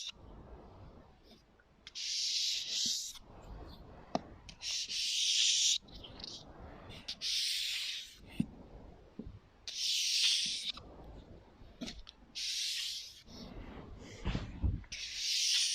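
Soft hissing bursts, each about a second long, come roughly every two and a half seconds, with a few faint taps and knocks between them.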